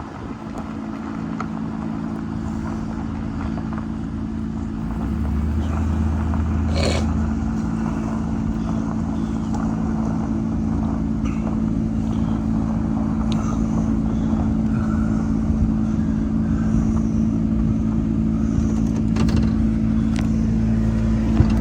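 A motor vehicle's engine running steadily with a low hum, with a brief click about seven seconds in.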